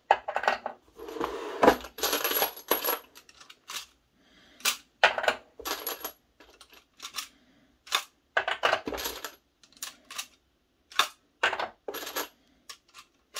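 Brass 6.5 Creedmoor rifle cases clinking and rattling against one another as they are picked out of a tray of loose brass, with sharp clicks from a Hornady hand priming tool seating primers and cases set into a plastic loading block. The clinks come irregularly, with denser rattles in a few bursts.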